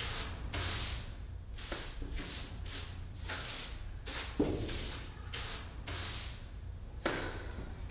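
Broom bristles sweeping stair steps: a dozen or so brisk swishes, about two a second, with a single knock about halfway through.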